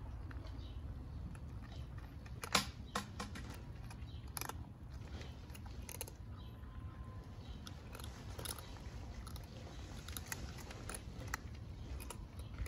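Several cats and kittens crunching dry kibble from bowls: irregular crisp chewing clicks, one sharper crack about two and a half seconds in, over a faint steady low rumble.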